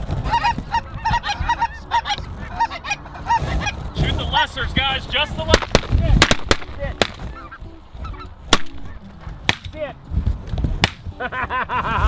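A flock of lesser Canada geese calling overhead: many short, rapid, high-pitched honks overlapping one another. Several sharp clicks or knocks come through in the second half.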